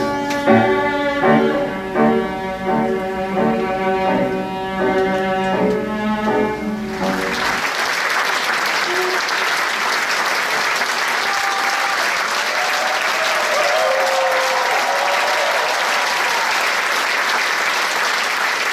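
Orchestral string music plays for about seven seconds and stops. An audience then breaks into steady applause, with a few cheers in the middle.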